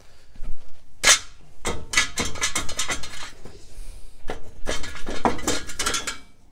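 Rusted front hub and wheel bearing assembly of a Dodge Ram 3500 being worked loose and pulled off the steering knuckle and axle shaft splines: rapid metallic clinks and scrapes in two bursts, the second near the end.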